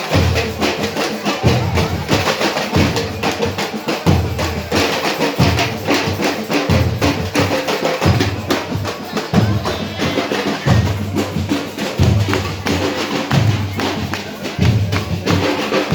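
Brazilian carnival music with dense drumming and a deep bass beat returning about every second and a third.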